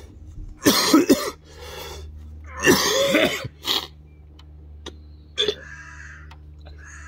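A man coughing in fits: two sharp coughs about a second in, a longer cough with voice in it around three seconds, then single coughs near four and five and a half seconds. He is choking on the stench of opened surströmming, fermented Baltic herring.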